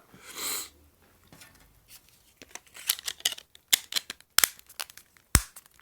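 Hard plastic clicks and taps from a mobile phone battery and back cover being handled, after a brief rustle; a quick irregular run of clicks in the second half, the loudest one near the end.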